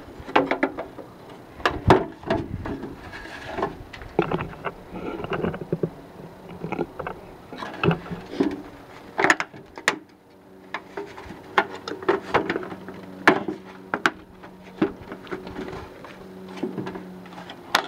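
A metal rain gutter section and a downspout outlet being handled and fitted together: irregular knocks, taps and rattles of thin sheet metal.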